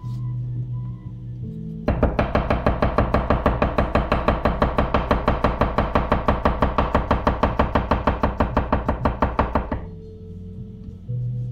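Yoshiaki Fujiwara 240 mm gyuto chopping vegetables on a wooden cutting board in a fast, even rhythm of about six strokes a second. It starts about two seconds in and stops shortly before the end. Background music plays throughout.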